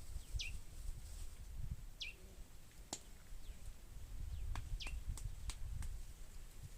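A bird repeating a short call that sweeps quickly down in pitch, about every two seconds. Several sharp clicks fall in the second half, over a low rumble.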